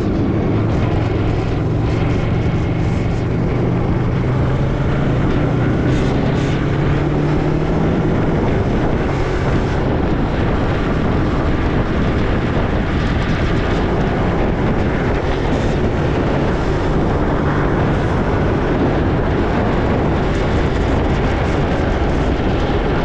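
A vehicle engine running while moving, over steady wind and road rumble on the microphone. The engine note is clearest for the first eight seconds or so, easing slightly in pitch, then sinks into the noise.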